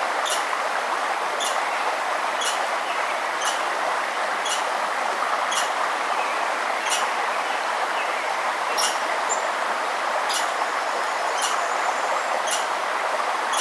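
Steady rushing of a river or stream, with a bird repeating a short, high chip call about once a second. A faint, thin, high whistle comes in briefly partway through.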